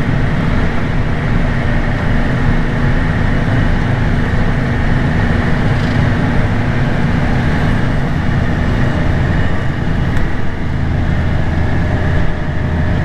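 Diesel engine of heavy farm machinery running steadily: a continuous low drone with a steady hum.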